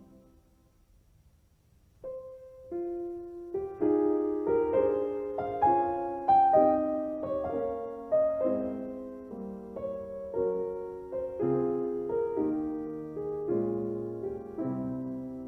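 Gentle piano music. About two seconds in, after a near-silent pause, a slow piece starts with single notes and goes on in struck chords that each fade away.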